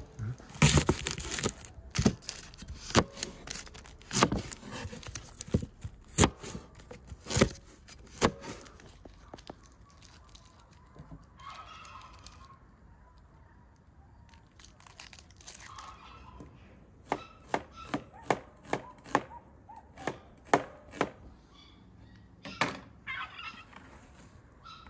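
Knife cutting vegetables on a wooden cutting board: sharp knocks about once a second, then a quicker run of strokes, two or three a second, about two-thirds of the way through.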